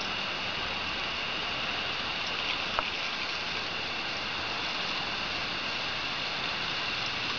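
Steady hiss and patter of a thin garden water jet falling onto grass, with a single short tick about three seconds in.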